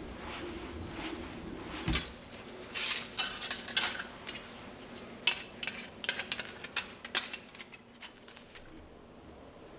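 Hard metal objects knocking and clinking together: one loud knock about two seconds in, then a quick run of lighter clinks and clatter for several seconds before it settles.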